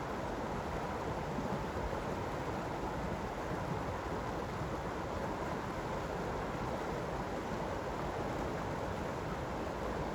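Creek water flowing, a steady rushing with no breaks.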